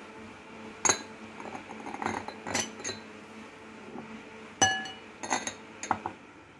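Glass bowls clinking against each other and the table as they are handled and set down: several sharp clinks. The loudest comes about four and a half seconds in and rings briefly. A steady low hum runs underneath.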